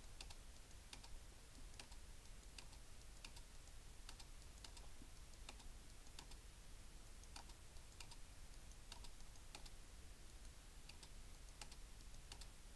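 Faint computer mouse and keyboard clicks at irregular intervals, about one a second, as shapes are selected and deleted one at a time.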